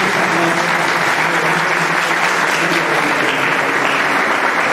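Audience applauding steadily in a hall at the close of a lecture.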